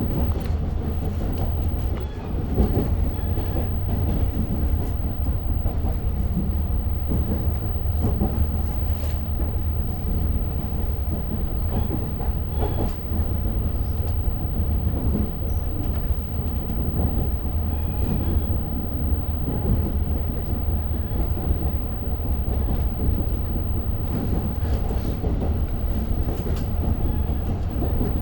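Long Island Rail Road diesel train heard from on board while running between stations: a steady low rumble with scattered clicks of the wheels over the rails.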